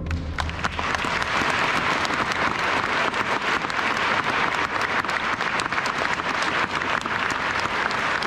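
Audience applause, steady clapping from a crowd, beginning as the concert band's last low note dies away within the first second.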